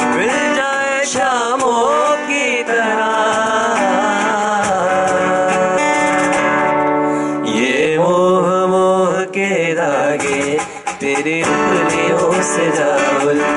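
Live acoustic performance of a Hindi song: a male voice sings long, ornamented melodic lines that glide up and down, over two strummed acoustic guitars.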